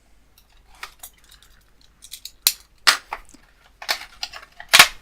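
Plastic packaging being handled as a cable's retail box is opened and its plastic tray taken out: a run of irregular sharp clicks and crackles, denser and louder in the second half, the loudest near the end.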